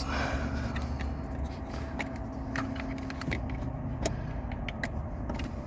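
Light, irregular clicks and ticks of hand work on the car battery's terminal as it is reconnected, over a steady low hum.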